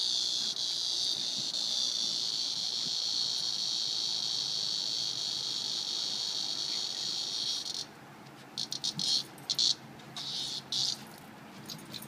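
Cicada buzzing, a steady high whine that stops abruptly about eight seconds in and then comes back as a string of short broken buzzes.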